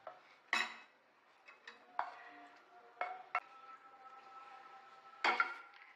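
Wooden spatula scraping and tapping shallow-fried chicken strips out of a frying pan onto a ceramic plate: a handful of light knocks and scrapes, with a faint steady tone underneath.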